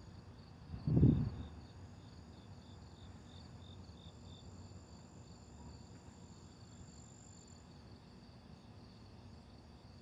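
Crickets chirping steadily in a night chorus, with a high pulsing of a few chirps a second and a faint low rumble underneath. A brief low thump about a second in is the loudest sound.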